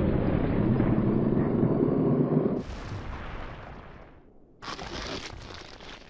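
Anime sound effects: a loud low rumble lasting about two and a half seconds, then two shorter noisy rushes, each fading away.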